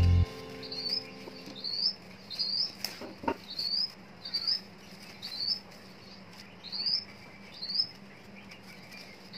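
A bird repeats a short, high, rising chirp about once a second. Background music cuts off just after the start.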